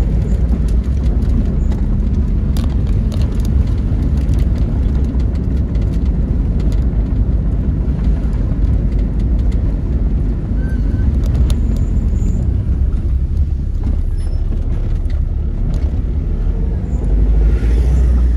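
A vehicle driving along a concrete road: a steady low rumble of engine and road noise.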